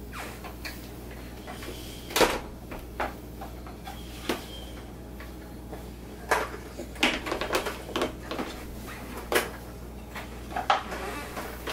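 Wooden peg-puzzle pieces and a plastic toy knocked and tapped against plastic high-chair trays: irregular sharp knocks and clatters, several bunched together past the middle.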